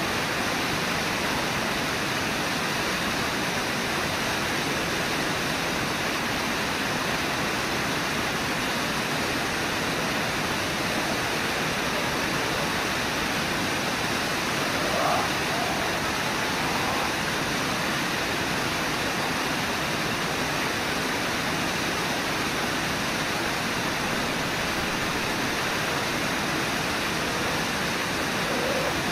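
Steady rush of fast river water and a low waterfall, with a brief faint call about halfway through.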